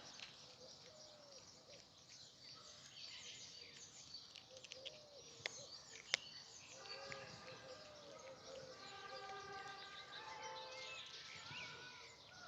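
Many small birds chirping and singing together, with steadier whistled notes in the second half and a couple of sharp clicks near the middle.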